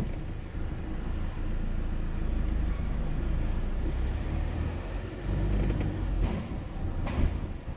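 Car engine and tyre rumble heard from inside the cabin while driving, steady and low, with a couple of brief knocks near the end.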